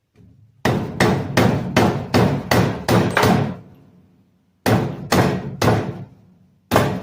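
Hammer tapping a Robin 2PG engine's crankshaft down into one half of the crankcase to seat its bearing. There is a run of eight even blows at about two and a half a second, a pause, then five more blows, each with a short ring.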